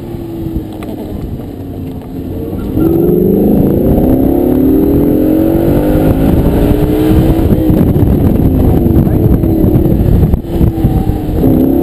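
Lamborghini Gallardo LP560-4's V10 engine heard from the open cockpit under hard driving. It is fairly quiet at first, then opens up loudly about three seconds in with its note climbing. It falls away after about eight seconds, dips briefly near ten seconds, and pulls again near the end.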